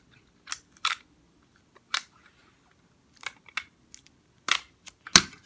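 Clear sticky tape being pulled from a hand-held tape dispenser, torn off on its cutter and pressed onto a cardboard tube: a string of short sharp clicks and rips, about seven in all, the loudest near the end.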